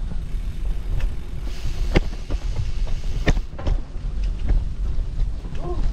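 Wind rumbling on the microphone of a camera on a moving bicycle, with the tyres rolling over a rough dirt path and sharp knocks from the bike jolting over bumps, twice around two and three seconds in.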